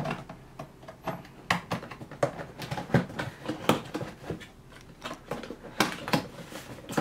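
Fingers handling a cardboard box and its tuck-in flap tabs: irregular small taps, knocks and scrapes of hand on cardboard as the lid is worked open.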